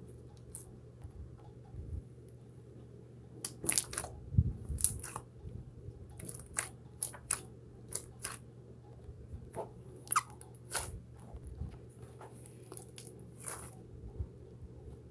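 Slime being stretched, squeezed and pressed by hand, giving irregular sharp pops and crackles from trapped air, over a faint steady low hum.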